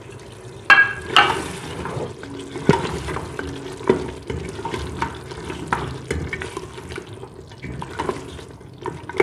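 Slotted wooden spoon stirring and scraping chunks of mutton through thick frying masala in an aluminium pressure-cooker pot, with irregular knocks against the pot that are sharpest about a second in, over a low sizzle of the masala frying.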